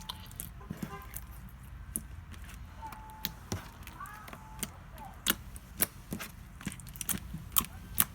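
Jiggly slime made from white glue being poked and squeezed, giving irregular sharp pops and clicks, about two a second.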